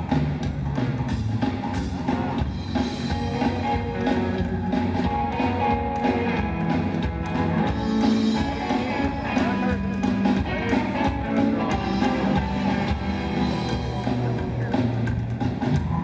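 Live rockabilly trio playing: electric guitar, upright bass and drums.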